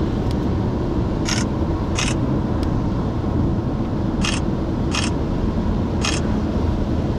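Steady road and engine noise of a car driving, heard from inside the vehicle, with five short, sharp clicks spread unevenly through it.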